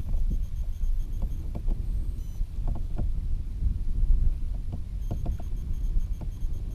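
A pedal-driven kayak moving through choppy water, with small irregular splashes and ticks of water against the hull over a steady low wind rumble on the microphone.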